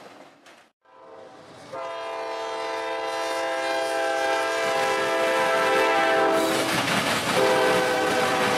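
Air horn of an approaching CSX freight locomotive: one long steady blast starting about two seconds in, then a second blast starting near the end, over the rising noise of the passing train.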